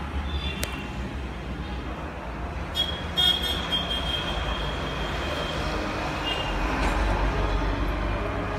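Steady low rumble of road traffic, with a vehicle horn tooting about three seconds in and a shorter toot a few seconds later.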